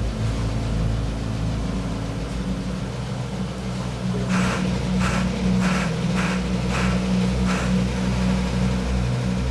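A steady low mechanical drone, with a run of about six short hissing pulses, a little over half a second apart, in the second half.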